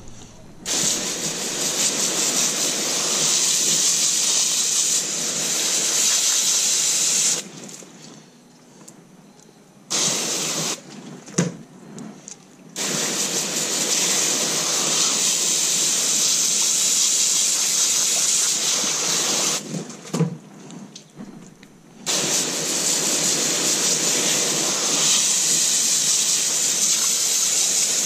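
Water spraying from a pistol-grip garden hose nozzle onto a granite slab, rinsing crappie fillets and scales off the stone. It runs in long squeezes of the trigger, stopping twice for a few seconds, with short spurts in between.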